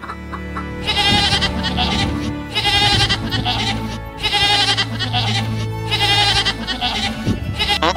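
Domestic goats bleating: a run of long, quavering bleats one after another, starting about a second in, over background music.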